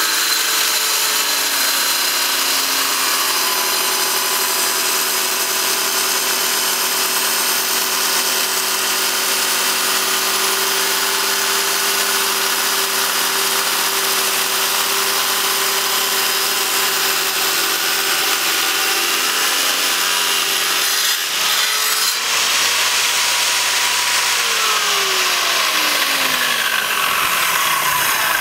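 Wet tile saw's diamond blade cutting through a small silver ore rock: a loud, steady whine with a grinding hiss, its pitch wavering slightly as the rock is fed through. Near the end the motor's pitch slides down.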